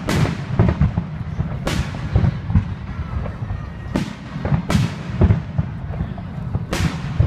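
Aerial fireworks shells bursting: about five sharp booms at irregular intervals, each with a fading echo, over a continuous low rumble.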